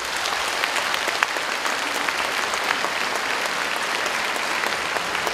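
Concert audience applauding steadily, a dense, even patter of many hands clapping.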